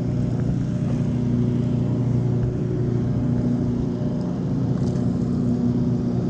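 Steady low motor hum, even in pitch and unbroken, over a rumble of wind on the microphone.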